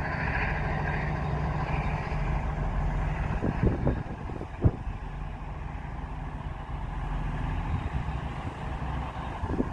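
Diesel train engines running steadily with a low hum, as a TransPennine Express Class 802 bi-mode pulls away under diesel power with a Class 185 diesel unit standing alongside. A few knocks come about three and a half seconds in, followed by one sharp click.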